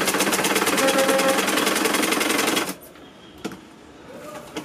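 Sewing machine stitching a seam at a rapid, even rate, then stopping abruptly a little under three seconds in; a single sharp click follows.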